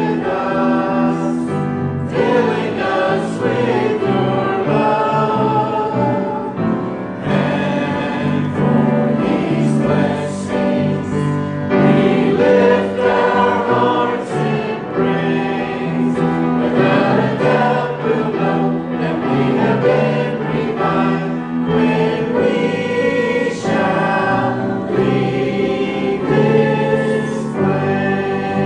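Church choir and congregation singing a hymn together, many voices in unison and harmony, with the song leader's voice out front.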